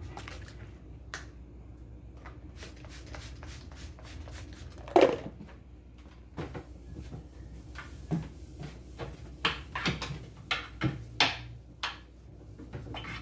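A run of light knocks and clicks from wiping and handling things on a wooden kitchen cupboard shelf, with one loud knock about five seconds in.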